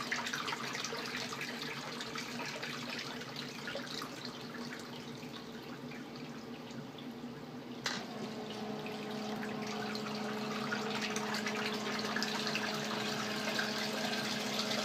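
Water pours and splashes into a sump pit as it refills. About eight seconds in there is a click as the sump pump switches on, and its motor hums steadily over the water from then on. The pit is refilling within seconds after heavy rain, so the pump is cycling very often.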